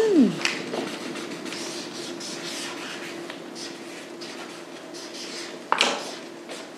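Pens scratching on paper notepads as answers are written, over a steady low hum, with one sharp click near the end.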